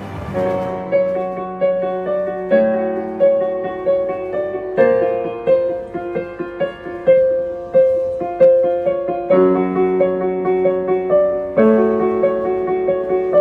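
Piano music: a note struck about every half-second over sustained low chords that change every two to three seconds.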